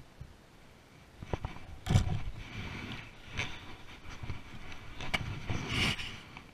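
Handling noise close to the microphone: a gloved hand and clothing rub and knock against the camera, giving irregular rustling with several sharp knocks.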